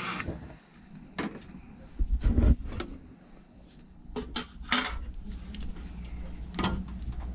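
Scattered metallic clinks, clicks and knocks of tools being handled, the loudest cluster about two seconds in, over a low steady hum that comes in at about the same time.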